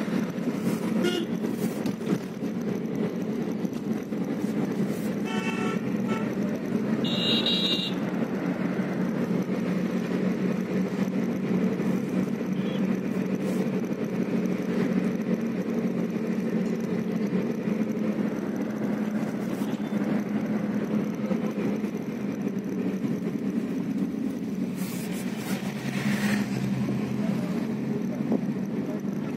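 Steady engine and road noise of a car heard from inside its cabin while driving, with vehicle horns sounding briefly about five and seven seconds in.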